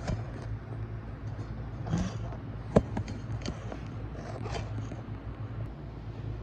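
Cat purring close to the microphone, a steady low rumble, with scraping and rustling noises and one sharp click a little before three seconds in.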